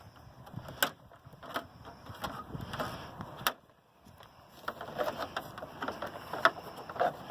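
Ford Ranger's plastic radiator cover being pried up off its clips and lifted free: a string of sharp plastic clicks and knocks, a brief pause, then quicker small knocks and rattles as it is handled.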